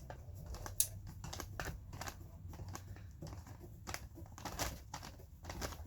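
Hand rivet nut tool being unscrewed from a freshly set rivet nut: a run of small, irregular metal clicks and ticks as the threaded mandrel is turned back out of the nut.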